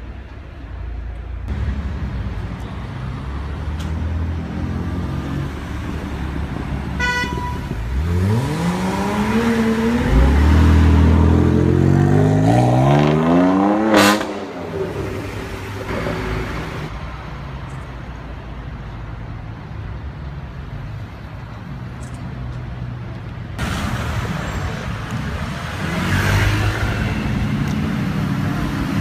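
Sports car engines accelerating hard, the pitch climbing in two pulls before cutting off suddenly, with a short car horn toot just before. Quieter engine and street noise follow, and another engine rises in pitch near the end.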